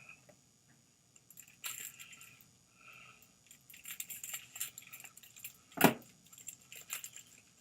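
Scissors cutting open the small plastic wrapper of a squishy toy: scattered crinkles and light clicks, with one sharp, loud click a little under six seconds in.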